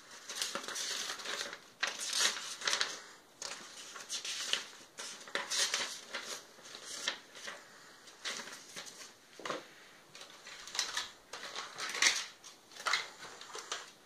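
Paper instruction sheet rustling and crackling as it is unfolded, flipped over and handled, in irregular bursts.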